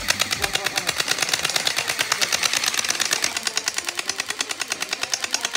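Rapid, even clicking, about ten clicks a second, sharp and high-pitched, going on without a break.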